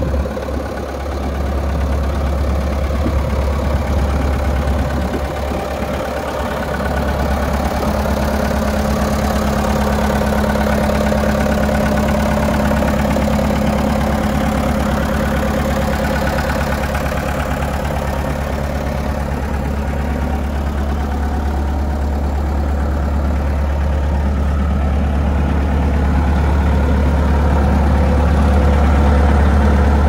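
Diesel engine of a Melroe Bobcat 873 skid steer idling steadily, growing a little louder near the end.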